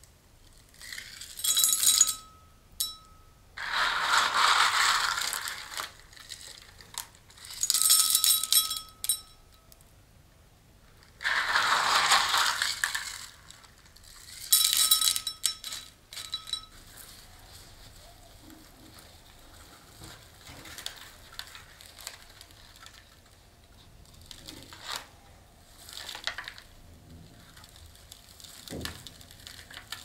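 Potting soil being worked into a ribbed ceramic planter by hand: five loud bursts of gritty scraping and rustling in the first half, several with a faint ringing from the pot. After that come only soft, scattered rustles.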